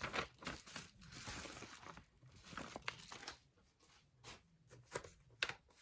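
Packaging being torn open and crinkled by hand: irregular rustling and crackling with a few sharp clicks.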